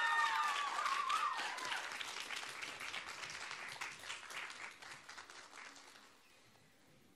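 Audience applauding after a dance performance; the clapping is loudest at first, then thins out and dies away about six seconds in.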